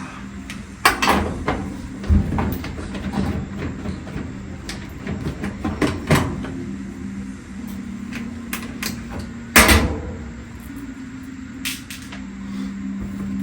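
Irregular clunks, knocks and scrapes of dryer panels and parts being handled and pulled apart by hand. The loudest knock comes near the end, under a steady low hum.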